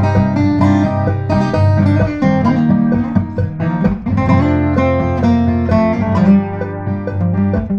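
Steel-string acoustic guitar played solo, a continuous run of plucked notes over bass notes.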